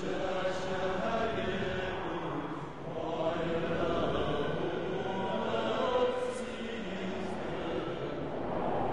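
Background music of slow, sustained wordless chanting voices, choir-like, with a short lull about three seconds in.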